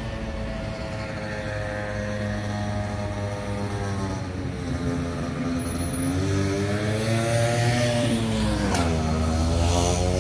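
A motor's steady drone whose pitch slowly slides, dipping and rising again near the end, growing somewhat louder as it goes.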